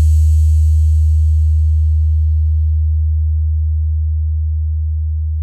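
A deep electronic sub-bass tone from a DJ bass track, held as one steady low note and slowly fading.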